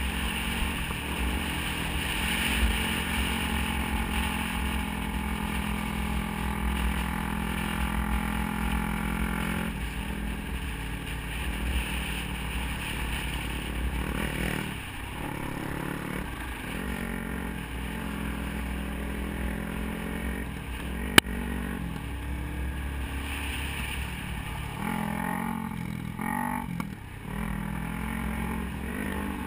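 Dirt bike engine running, its pitch rising and falling as the throttle opens and closes, with wind buffeting the bike-mounted camera's microphone. A single sharp click about two-thirds of the way through.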